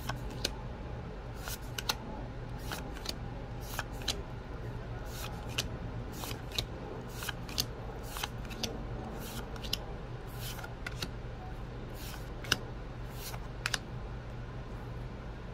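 Magic: The Gathering trading cards being handled one by one, each card slid off the front of a stack and tucked behind it, giving short papery clicks and snaps about once or twice a second over a low steady hum.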